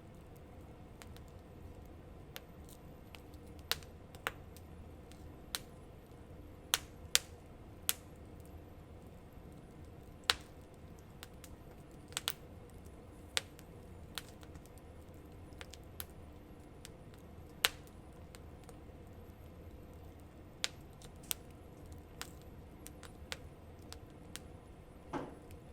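Wood campfire crackling, with sharp, irregular pops and snaps every second or so over a low, steady background.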